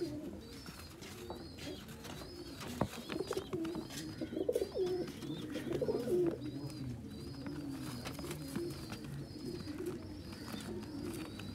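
Domestic high-flyer pigeons cooing continuously in low, warbling calls. A faint high chirp repeats about once a second above the coos.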